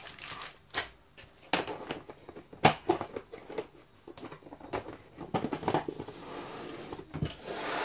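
Rummaging in a clear plastic storage box of bagged coins: plastic bags rustling, with scattered sharp clicks and knocks from items being moved.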